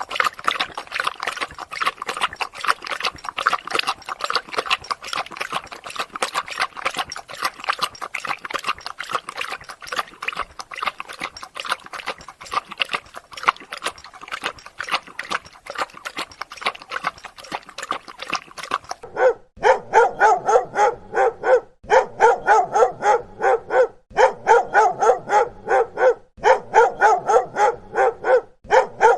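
Dogs barking: a dense, rapid run of overlapping barks, which changes abruptly about two-thirds of the way through to quick, high-pitched yapping in bursts of about two seconds with short breaks between them.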